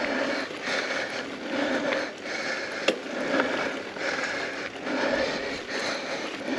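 Mountain bike rolling over a dirt singletrack, with the rider's hard, rhythmic breathing pulsing about one and a half times a second and a single sharp click about three seconds in.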